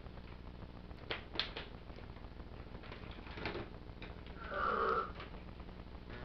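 Hard plastic toy parts of a Transformers Trypticon figure clicking and knocking as they are handled and fitted. There is a quick run of three clicks about a second in, another around three and a half seconds, and a short, louder rub or creak a little before five seconds.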